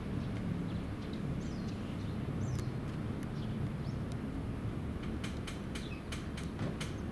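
Outdoor harbourside ambience: a steady low rumble with a few short, high bird chirps, and a quick run of sharp ticks about five seconds in.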